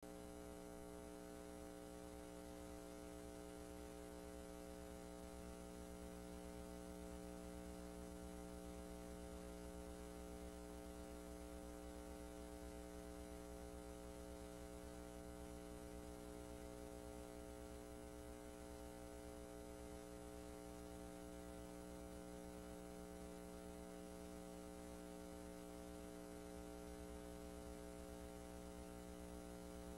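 Steady electrical hum of several fixed tones over a faint hiss, unchanging throughout, with no other sound: the background noise of a silent film's transfer.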